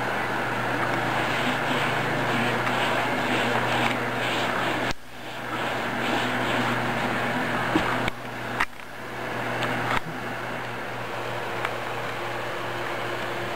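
Steady hum and hiss of background noise, dipping and clicking briefly three times, about five, nine and ten seconds in.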